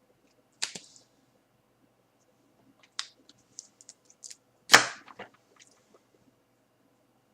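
A few sharp, irregularly spaced clicks and taps, one just under a second in, a quick cluster around three to four seconds, and the loudest one a little before five seconds with a short ring after it.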